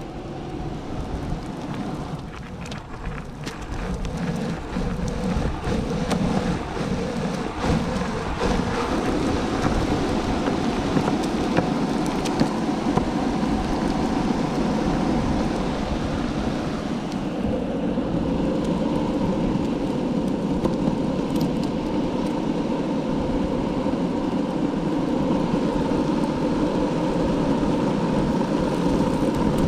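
Longboard wheels rolling over pavement: a steady rumble with a faint hum, and scattered short clicks during the first dozen seconds.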